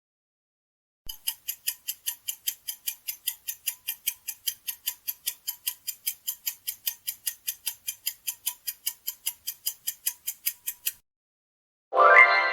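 Clock-style countdown timer ticking, about four ticks a second for roughly ten seconds, then stopping abruptly. Near the end a loud, bright chime begins and rings on.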